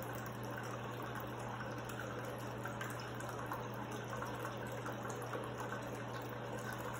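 Tabletop rock-style waterfall fountain running: water trickling and splashing steadily down its tiers into the basin, over a steady low hum.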